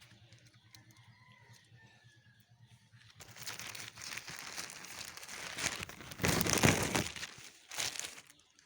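Packaging crinkling and rustling as it is handled, starting about three seconds in and loudest a little past the middle.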